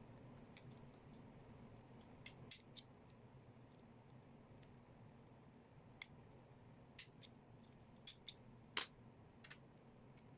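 Faint, irregular small clicks and ticks, a dozen or so scattered over a steady low hum, with one sharper click near the end.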